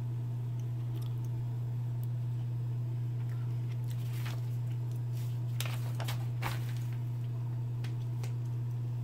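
Steady low hum throughout, with a few brief rustles and taps between about four and six and a half seconds in as the paper instruction manual is handled and its pages turned.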